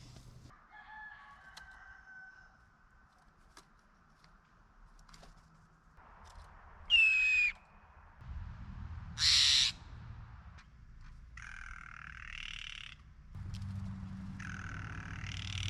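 Steller's jays calling: two loud, harsh calls about seven and nine seconds in, then quieter raspy calls near the end.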